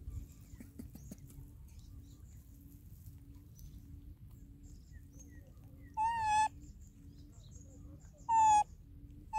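Baby macaque giving two short, steady-pitched coo calls, one about six seconds in and another about two seconds later.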